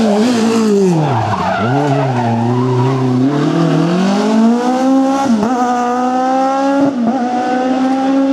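Rally car engine dropping in revs as it brakes about a second in, then pulling hard with the revs climbing, broken by two quick gear changes.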